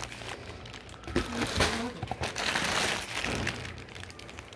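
Plastic candy bags crinkling and rustling as they are handled and lifted out of a cardboard box, with a few soft thunks.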